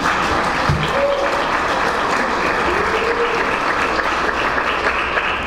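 Audience applauding, a dense steady clatter of many hands that begins to fall away near the end.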